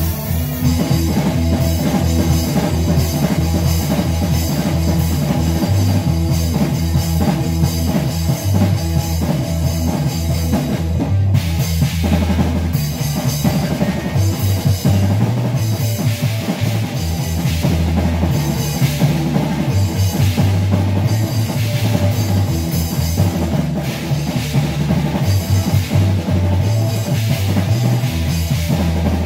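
Live rock band playing loudly: electric bass, electric guitar and a full drum kit with kick drum and cymbals. The bass notes shift under a steady drum beat, with no singing.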